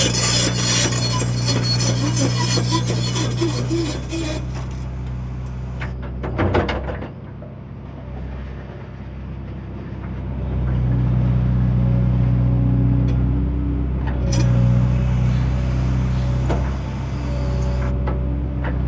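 JCB excavator's diesel engine running under working load, a steady low hum. Scraping and grinding, likely the bucket in soil and rubble, fills the first few seconds, with a clunk about six and a half seconds in. The engine works harder again from about ten seconds in.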